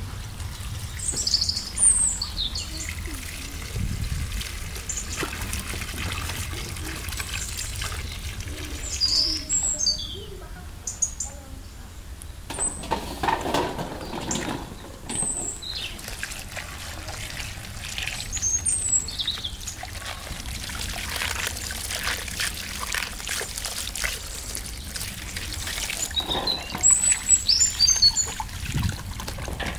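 Water pouring from a garden tap into a basin while bell peppers are rinsed and splashed about in it. Birds chirp several times in short bursts.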